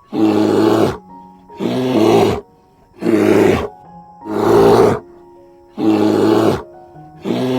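An animal's loud, harsh calls, about six bursts of under a second each, roughly every second and a half, over soft background music.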